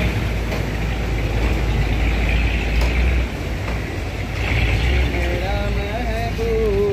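Heavy truck's diesel engine running steadily under load as the truck ploughs through deep mud and water. A voice calls out briefly near the end.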